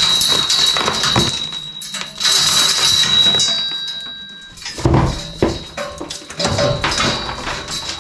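Stone and crumbling clay mortar scraping and falling as stones are worked out of a rubble-stone wall above a rotten lintel. A long gritty scrape with a thin high squeal runs through the first three seconds or so, then come several dull thuds.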